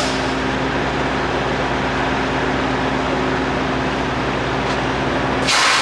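Semi-truck engine running with a steady hum and a fan-like rush, heard inside the cab. A short burst of hiss comes near the end.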